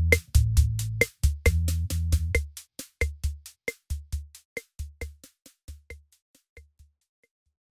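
Electronic background music with a drum-machine beat: a quick, even ticking pattern over a bass line. The bass drops out about two and a half seconds in, and the beat fades out near the end.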